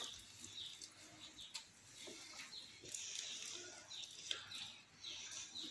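Faint eating-by-hand sounds: fingers mashing rice on plates, with wet chewing and lip-smacking that give small clicks and short, high chirp-like squeaks.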